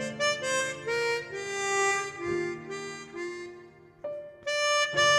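Chromatic harmonica playing a slow, singing melody, one note at a time with a short break about four seconds in before the next phrase begins.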